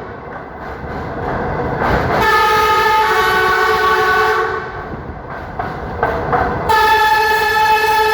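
Train horn sounding two long blasts of a steady chord, the first starting about two seconds in and lasting over two seconds, the second starting near the end, over the rumble and clickety-clack of the moving train.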